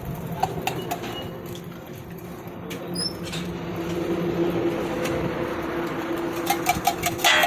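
Food-stall cooking noise: a steady hum with a few scattered clicks. About a second before the end, a cooking utensil starts knocking sharply and evenly, about four times a second.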